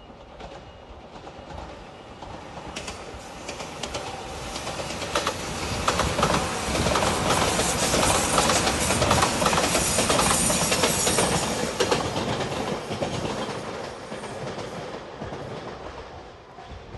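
Anpanman-painted express train passing close by at speed: its rumble swells, peaks with fast wheel clacks over the rail joints about halfway through, then fades as it moves away.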